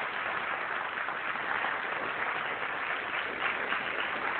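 An audience applauding, a steady mass of hand claps.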